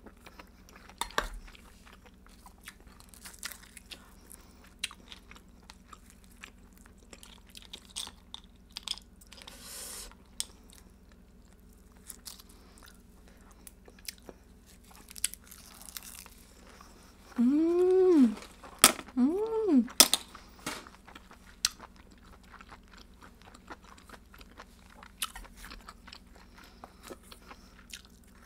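Close-up eating sounds of a person eating rice and seasoned cockles wrapped in roasted seaweed: chewing, crunching and many small clicks. About two-thirds of the way through come two short hummed 'mm' sounds, each rising and falling in pitch, the loudest sounds here.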